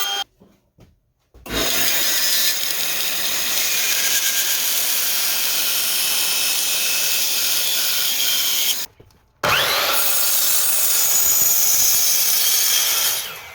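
A power tool cutting rabbets into wooden 4x4 posts, in two long passes that each cut off abruptly. The second begins with a rising whine as the motor spins up.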